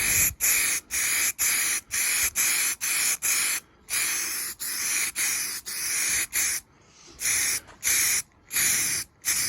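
Air-fed paint spray gun hissing in short bursts as the trigger is pulled and released, about two a second at first and then in a few longer passes, laying a coat over a repaired car door panel.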